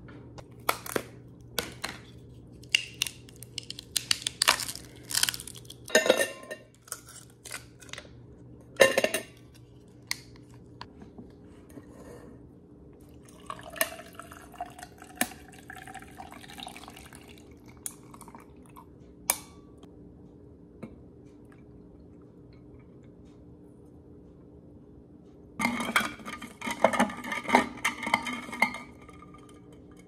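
Kitchen counter sounds: a glass jar and a stainless steel tumbler knocked and set down, with sharp clinks and taps. Partway through, liquid is poured into the tumbler, its tone rising as it fills. A dense burst of metal clinking and rattling comes near the end.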